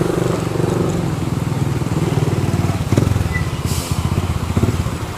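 An engine running close by with a rapid, even pulse, with a short knock about three seconds in.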